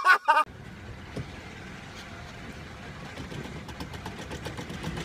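A man's brief loud laughing shout at the very start, then a steady low vehicle engine hum with faint ticks through it.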